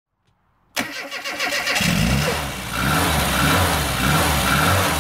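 A car engine starting: it cranks for about a second, catches, and then runs on steadily with a slightly wavering pitch.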